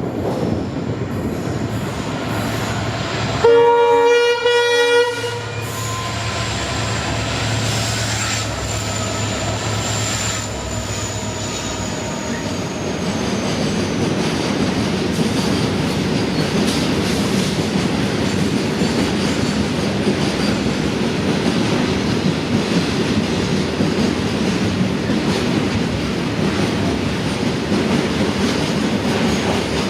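Horn of an EMD WDG 4D and WDG 4 diesel locomotive pair, sounding one weird honk of about a second and a half a few seconds in. After it, the locomotives and a fully loaded freight train of wagons roll past with steady clattering rail noise, and a thin high wheel squeal slowly falls in pitch.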